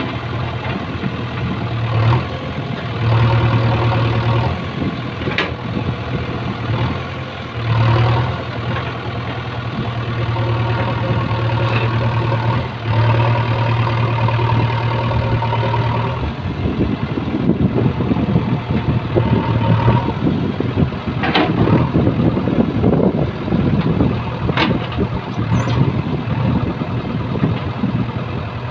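JCB backhoe loader's diesel engine running under changing load as the backhoe bucket pushes soil back into the pipeline trench, its steady hum dipping and returning as the hydraulics work. In the second half it runs rougher and noisier, with a couple of sharp clanks about three-quarters through.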